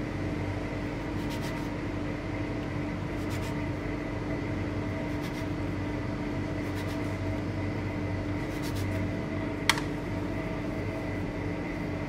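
Steady machine hum of kitchen equipment, with a soft scrape every couple of seconds as a metal ring cutter is pressed through pastry dough on a stainless steel table, and one sharp click near the end.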